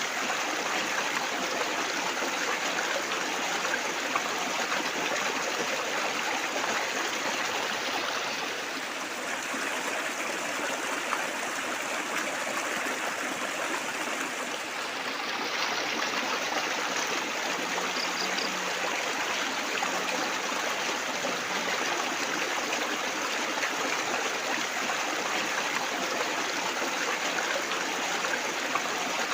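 Water trickling and splashing steadily, like a small stream, growing slightly softer and duller for a few seconds about eight seconds in.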